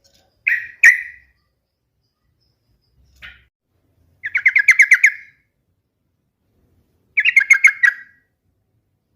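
Yellow-vented bulbul (trucukan) singing: two short notes, then two quick runs of rapidly repeated chirps, the first about four seconds in and the second about seven seconds in.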